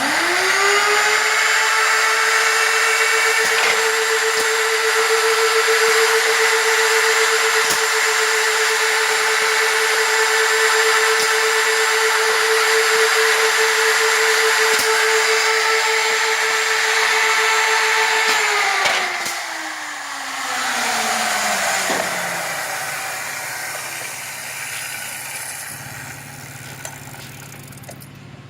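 Builder's Automation 996E hinge-routing machine running a cycle to cut a 3-inch hinge pocket. Its routers spin up to a steady high whine with scattered clicks, then wind down with a falling pitch at about 19 seconds in, leaving a hiss that fades.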